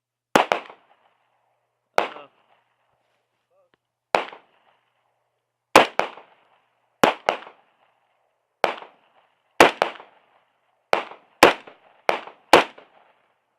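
Gunfire: about a dozen shots fired at an uneven, unhurried pace. Each crack is followed closely by a second, weaker crack and a short tail.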